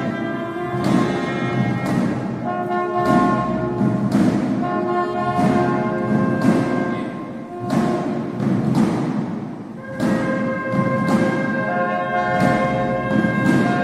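Orchestral music with brass playing held chords over regular timpani strokes.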